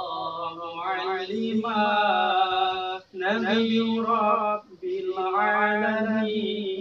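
A man's voice chanting in long, drawn-out melodic phrases, with brief pauses about three seconds and about four and a half seconds in.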